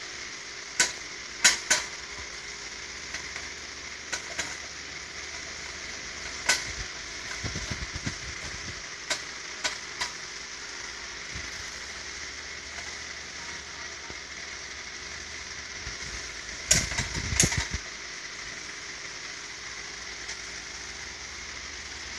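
Screwdriver and metal parts of a Riso duplicator clicking and knocking as parts are fastened: about ten scattered sharp clicks, the loudest near the start and a pair about three-quarters through, over a steady hiss.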